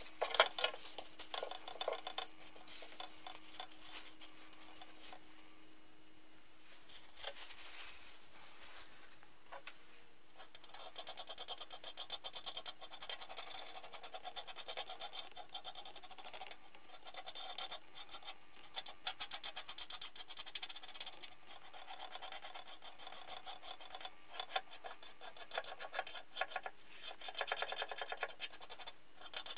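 Plastic bag crinkling under the hands in the first couple of seconds, then a small pointed tool scraping softened, bubbled paint off a wooden saw handle in rapid short strokes, louder in the second half.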